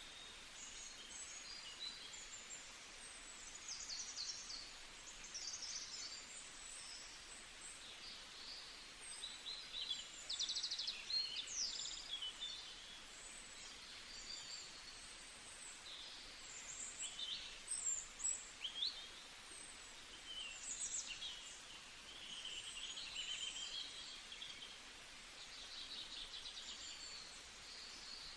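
Several small songbirds chirping and singing at once, many short high calls and trills overlapping, over a faint steady hiss.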